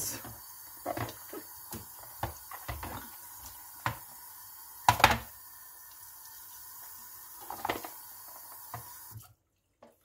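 Tap water running into a sink while a vacuum cleaner attachment is rinsed under it, with scattered knocks as the part bumps about, the loudest about five seconds in. The water cuts off suddenly about nine seconds in as the tap is shut.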